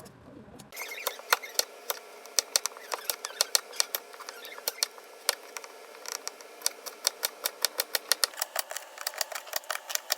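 A metal utensil clacking rapidly and irregularly against a pan while fried rice is stir-fried, about four or five clicks a second, over a faint steady hiss.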